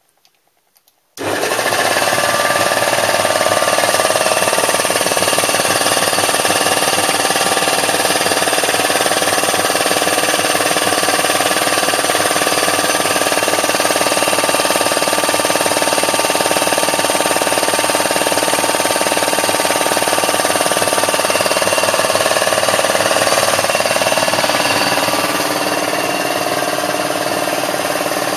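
Electric piston air compressor switching on about a second in, then running steadily and loudly.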